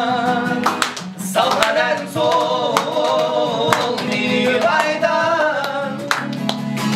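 Live acoustic performance: male voices singing long, wavering sustained notes over strummed acoustic guitar.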